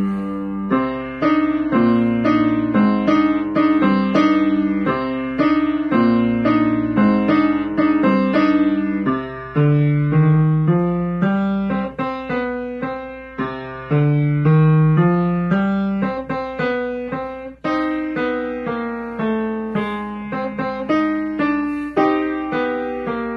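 Piano playing a boogie piece: a repeating figure in the bass under melody notes, each note struck and dying away.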